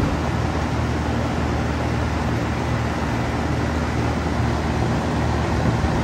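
Carrier outdoor AC condenser unit running, with a second 18-inch fan on top of its fan guard spinning: a steady hum under an even rush of blown air.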